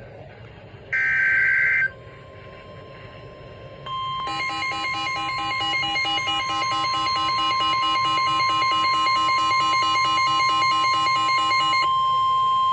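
Emergency Alert System alert for a severe thunderstorm warning. About a second in comes a one-second burst of the SAME digital header's screechy data tones. After a short pause, the loud attention signal begins: a steady high tone with a rapidly alternating beeping tone pattern over it, running for about eight seconds.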